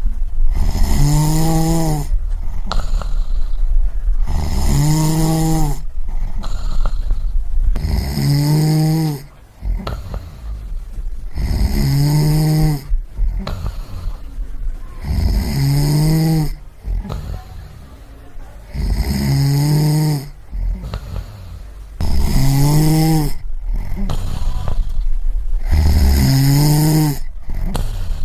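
A sleeping person snoring in a slow, regular rhythm: about eight snores, one every three and a half seconds. Each is a buzzing, pitched rattle with a hiss of breath, over a steady low rumble.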